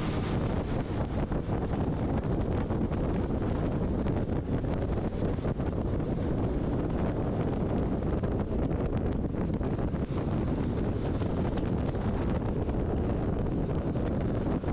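Wind buffeting the microphone of a camera on a moving Vespa scooter: a steady rushing noise that stays the same throughout.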